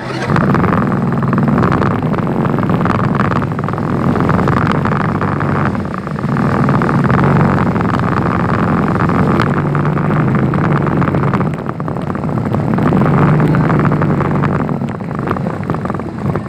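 Motor vehicle engine running steadily under a constant noisy rush, easing off briefly about six and twelve seconds in.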